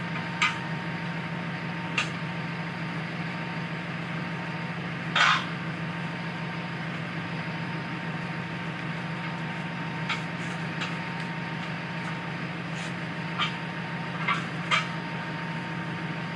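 Scattered sharp knocks and clanks, about nine of them with the loudest about five seconds in, from tire irons and the wheel being handled, over a steady low hum.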